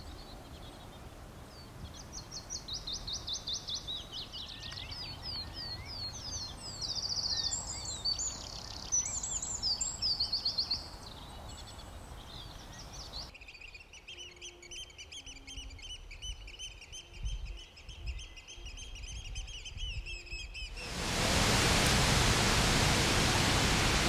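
Songbirds singing, with many quick repeated trills; about thirteen seconds in the birdsong changes abruptly to a thinner, steadier trilling chorus. About three seconds before the end, a loud steady rush of falling water from the Falls of Foyers cuts in.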